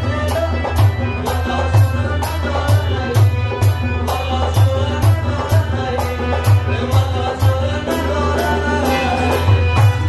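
Live Afghan folk song on harmonium, rubab, tabla and dholak: held harmonium chords under a plucked and sung melody, with the drums keeping a steady beat.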